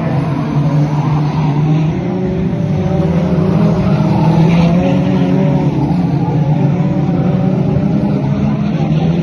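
F2 stock car engine running hard under racing power, a loud continuous engine note that wavers a little as the throttle is worked, slightly louder around the middle.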